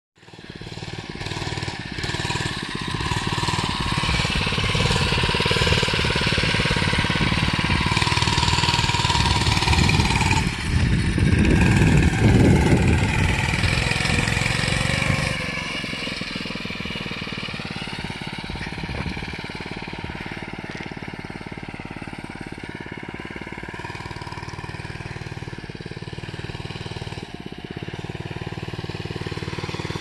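Mini bike's small engine running and revving as it is ridden, its pitch rising and falling with the throttle. Loudest in the first half, then quieter and steadier for the rest.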